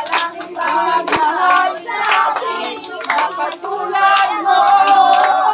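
Group of children singing together, with hand clapping, ending on a long held note.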